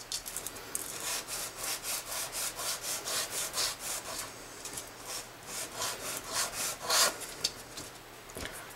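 Bone guitar nut being sanded by hand on sandpaper taped flat to the bench: quick back-and-forth scratchy strokes with a short pause midway, taking the nut down a little at a time until it fits snugly in its slot.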